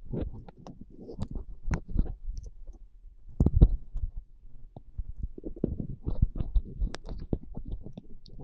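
A milk toffee's plastic wrapper crackling and being peeled away from the sticky sweet, close to a handheld microphone, with irregular clicks and low bumps from the mic being handled. The loudest crackle comes about three and a half seconds in.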